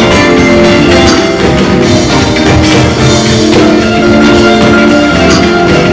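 Live church music with a drum kit and sustained chords, playing steadily and loud.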